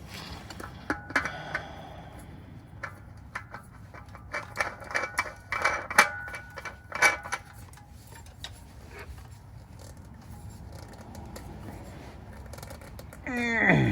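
Metal clinking and tapping as a wrench and an oil filter are handled on the engine: a run of sharp metallic clicks with a brief ringing tone through the first half, then only scattered light taps.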